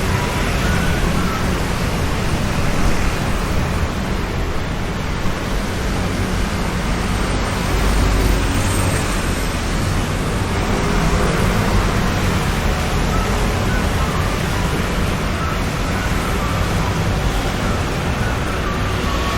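Steady, loud road traffic noise: a continuous rumble and hiss of passing vehicles with no single event standing out.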